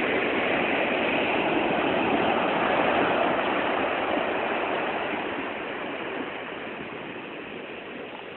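Sea surf washing up a sandy beach: a steady rushing of breaking waves that slowly fades over the last few seconds.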